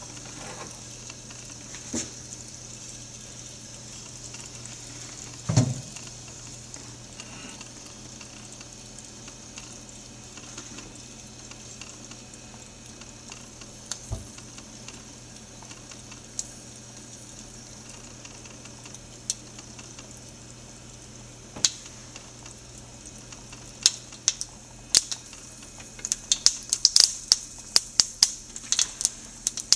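Mustard seeds sizzling in hot oil in a nonstick pan, with scattered sharp pops that come thick and fast over the last few seconds as the seeds start to crackle. The popping is the cook's sign that the tempering is ready for the next ingredients.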